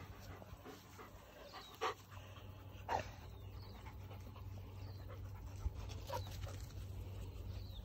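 Small curly-coated puppy panting quietly, with a few brief faint sounds about two, three and six seconds in.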